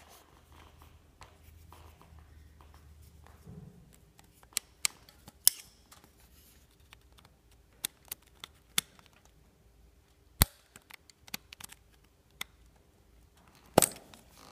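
Sharp, irregular plastic clicks and taps, the loudest about five and a half, ten and fourteen seconds in: a pointed tool prying at the locking clip of a motorcycle's oxygen-sensor wiring connector to unplug it.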